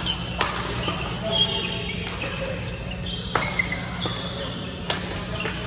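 Badminton rally: racquets striking the shuttlecock with four sharp cracks spaced one to two seconds apart, while court shoes squeak on the hall floor. A steady low hum runs underneath.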